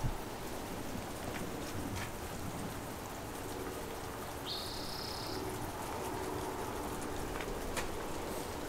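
Heavy rain falling steadily, with a few individual drops ticking close by. There is one short, high-pitched chirp about halfway through.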